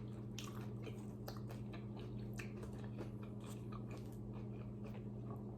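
A person chewing a crunchy taco shell close to the microphone: irregular crisp crunches and mouth sounds, over a steady low electrical hum.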